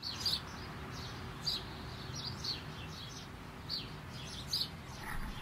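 Small birds chirping: short, high chirps that sweep downward, repeated about every half second over a faint low rumble.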